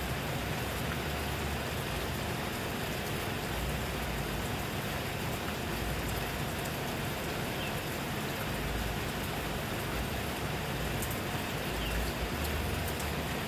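Steady rain falling on surfaces, an even hiss of many drops with a few sharper drip ticks and some low rumble.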